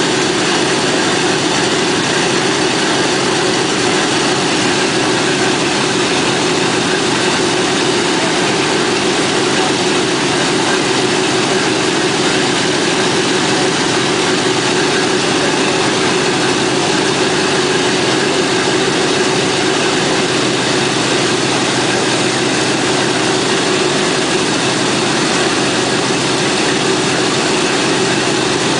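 Boeing B-17 bomber's Wright R-1820 Cyclone nine-cylinder radial engines running steadily with their propellers turning, a loud unbroken drone.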